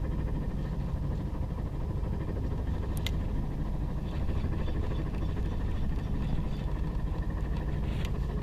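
Boat engine running steadily, with a single short click about three seconds in.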